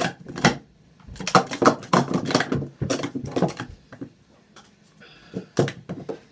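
Plastic Speed Stacks sport-stacking cups clacking in quick runs as they are stacked and unstacked by hand, with a few single knocks near the end.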